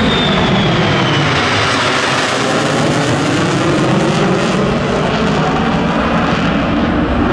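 Military fighter jet making a low pass: a loud, steady jet roar with slowly sweeping, swooshing bands, and a high whine sliding down and fading in the first half second.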